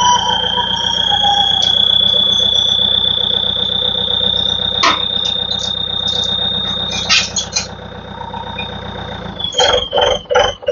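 Electric motor of a truck's lift running with a steady high whine that rises slightly in pitch over a low hum, then stops near the end. A quick run of short, evenly spaced pulses follows.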